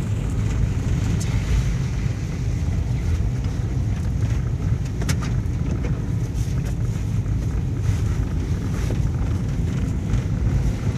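Low, steady rumble of a car's engine and tyres on a wet road, heard from inside the cabin while driving, with a few faint ticks.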